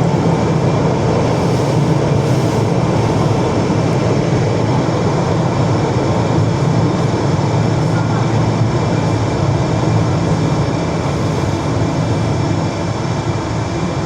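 ED4M electric multiple unit running between stations, heard on board: a steady rumble of wheels on rails and traction motor noise. It eases slightly near the end.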